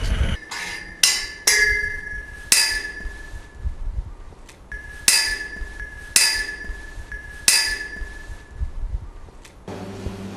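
Sharp metallic strikes that ring, about seven of them at uneven intervals of half a second to a couple of seconds. Near the end a steady low machine hum sets in.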